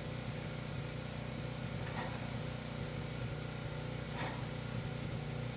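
An engine running at a steady idle, a constant low hum that does not change.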